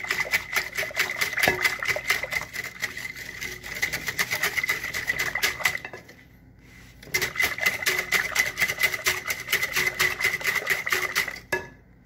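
Wire whisk beating a custard mix of egg yolks and milk in a bowl: rapid, even clinking of the wires against the bowl with a steady ringing note. The beating pauses for about a second midway and stops near the end.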